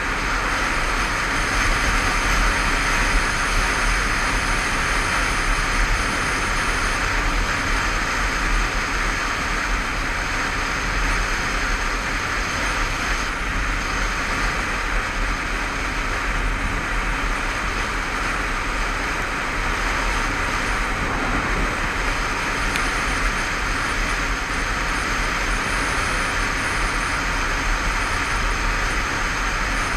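Steady wind rush over the camera microphone on a moving Honda CBF500 motorcycle, with its 500 cc parallel-twin engine and tyre noise running low underneath. The level stays even throughout, with no gear changes or revving standing out.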